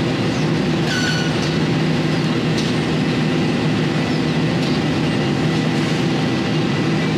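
A steady low mechanical drone of running machinery, with a brief high squeak about a second in.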